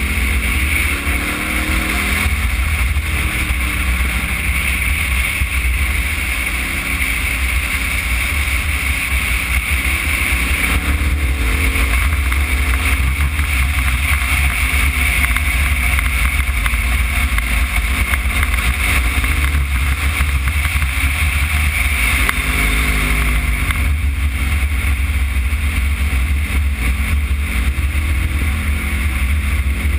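KTM 990 Adventure's V-twin engine running under way, its revs rising and falling, under heavy wind rush on the microphone.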